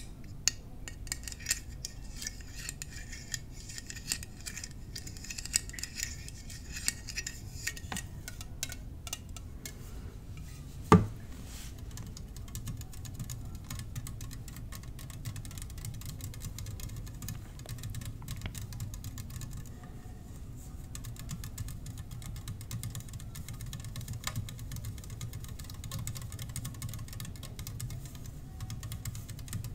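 Tapping and clinking on small glass mini-bar bottles: many light taps in the first ten seconds, one loud knock about eleven seconds in, then sparser taps over a low steady hum.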